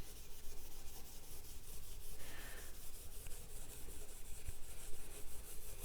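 Fine 0000 steel wool rubbing back and forth with the grain over the worn lacquer finish of a wooden radio cabinet, working in a finish restorer: a soft, continuous scratchy scrubbing.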